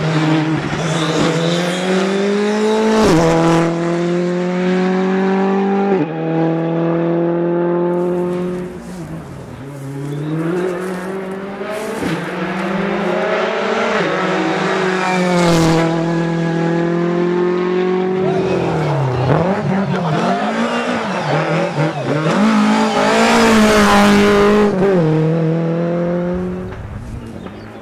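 Rally car engine at full throttle, its pitch climbing and dropping sharply at each gear change, with a lift and re-acceleration about nine seconds in and the revs rising and falling unevenly around twenty seconds in, then fading near the end.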